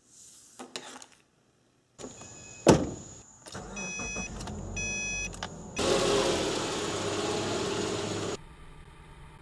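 A run of car sounds: a short rattle of keys, a sharp knock about two and a half seconds in, a repeating dashboard warning chime, then a 2010 Subaru Impreza's engine starting and running loud for a couple of seconds. Near the end it drops to a steady low hum.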